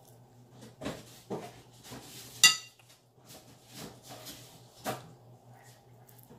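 Kitchen handling sounds: a few light knocks and one sharp, ringing clink of a utensil against a ceramic dish about two and a half seconds in, over a steady low hum.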